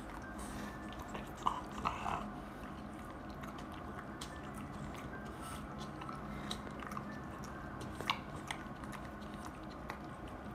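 A French bulldog chewing and gnawing at its paws: scattered crunches and clicks of teeth, loudest in a short cluster about one and a half to two seconds in.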